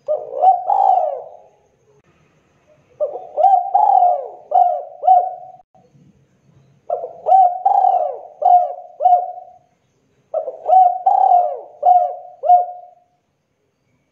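Spotted dove (derkuku, tekukur) cooing: four phrases of several quick coos each, with about a second of quiet between phrases.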